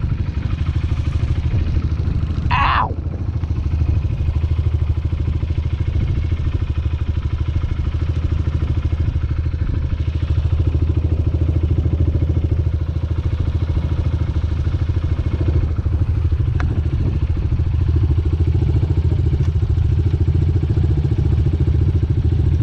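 Honda CRF125F Big Wheel's 125 cc single-cylinder four-stroke engine running at a fairly steady pitch, without big revs. There is a brief falling whistle about three seconds in.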